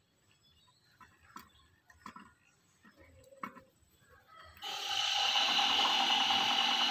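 A few faint clicks, then about two-thirds of the way in an AMR 500 supercharger aerator blower, belt-driven by a 1 HP three-phase induction motor on an inverter, starts up and runs steadily at slow speed. It gives a steady whine over a rushing air noise.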